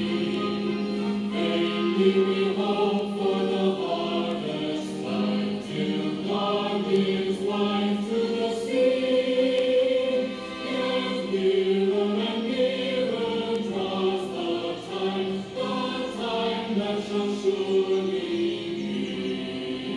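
Choral sacred music: a choir singing a slow melody over a steady held low note.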